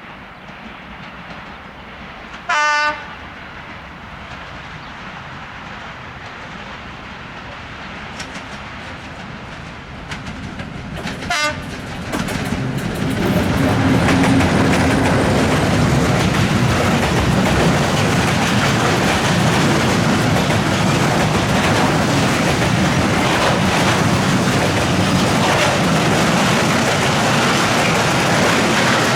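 Freight train hauled by diesel-electric locomotive DA-1541: a short horn blast, a second brief horn toot about 11 seconds in, then the train passing close with a loud steady rumble and wheels clicking over jointed track.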